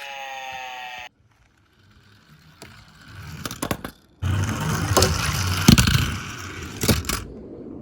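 An electronic toy siren wailing with repeated falling glides cuts off about a second in. After a short quiet, Tomica minicars roll down a slope with a rumbling clatter and several sharp knocks; it turns suddenly loud a little past halfway, then dies down near the end.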